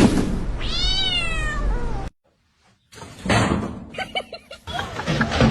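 A cat meowing: one long drawn-out meow that rises and then falls, about a second in, then after a brief cut to silence a few short meows among scuffling noise.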